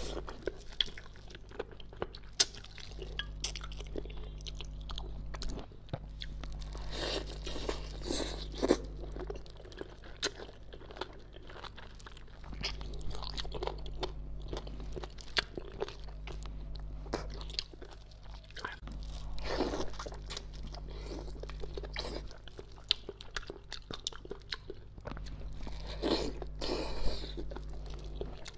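Close-miked eating of bony spicy braised fish: wet chewing and sucking at the meat around the bones, with frequent sharp mouth clicks and small crunches. A few longer sucking sounds come about a third of the way in, two-thirds in, and near the end.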